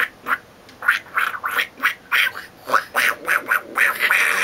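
A person's voice making a quick, uneven run of short non-word vocal sounds, about two or three a second, growing denser near the end.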